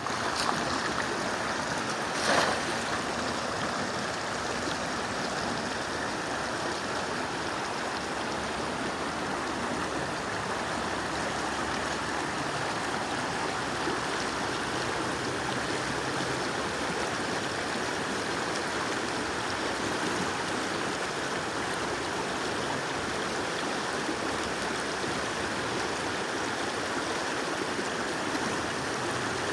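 Steady rush of flowing stream water, with one brief, louder sharp sound about two seconds in.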